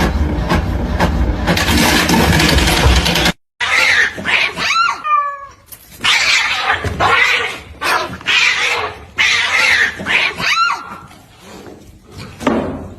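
A loud, steady sound with regular clicks runs for about three seconds and then cuts off suddenly. After it, a cat gives several drawn-out meows that fall in pitch, mixed with short noisy bursts.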